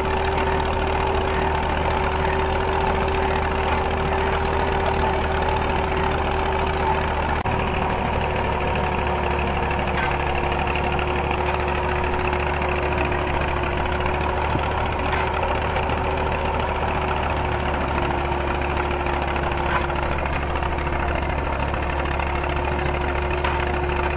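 Engine of a clay brick-making machine running steadily while its auger turns through wet clay in the feed hopper: a low hum with a steady whine above it that sags slightly in pitch as it goes.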